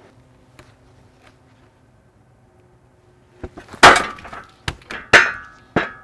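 Heavy pieces of elm log knocking and thudding as they are shifted and set down: about five sharp knocks in the second half, the loudest about four seconds in, one of them ringing briefly.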